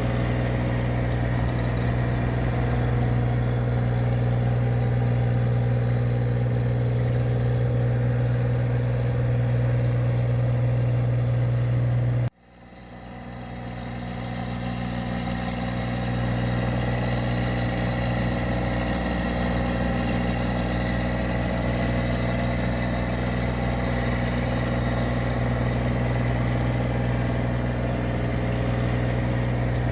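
Engine of a rice-harvesting machine running at a steady drone. About twelve seconds in the sound cuts out abruptly, then fades back up over a few seconds to the same steady running.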